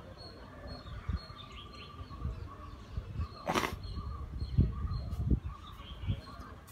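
Faint bird chirps over steady outdoor background noise, with a short loud hiss about three and a half seconds in and a few low thumps.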